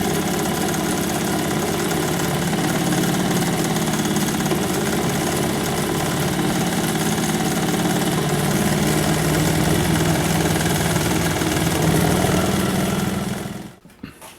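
Pfaff 134 industrial lockstitch sewing machine running at speed through layered denim and canvas scrap, a steady stitching run that stops abruptly near the end, followed by a couple of short clicks.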